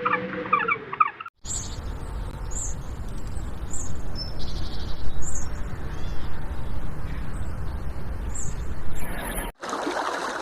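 Short, very high bird chirps, spaced about a second apart, over a steady low rumble, with abrupt cuts to other recordings near the start and near the end.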